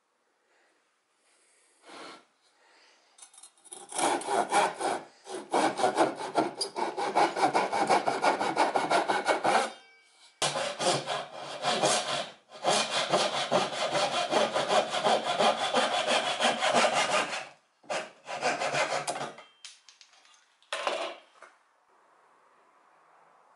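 Handsaw cutting through a pine beam to form a tenon, a long run of quick back-and-forth rasping strokes broken by a few brief pauses. A short scrape follows near the end.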